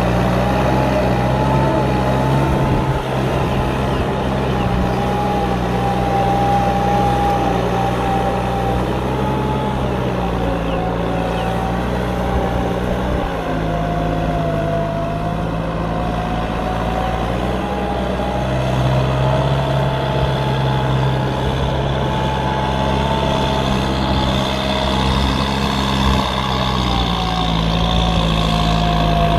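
Kubota M9540 tractor's four-cylinder diesel engine running steadily while working. A higher whine rides over it and drifts slowly up and down in pitch, and the engine note shifts slightly a few times.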